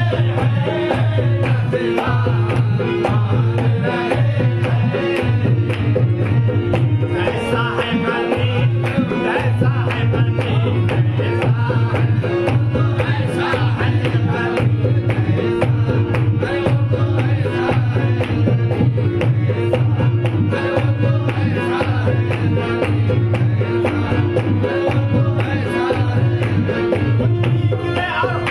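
Qawwali music: a steady hand-drum beat with a wavering melody line above it, running on without a break.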